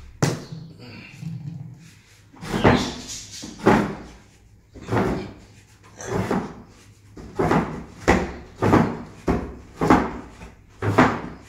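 A series of about a dozen sharp knocks and bangs, irregularly spaced roughly a second apart or less, like things being handled, set down or knocked about in a kitchen.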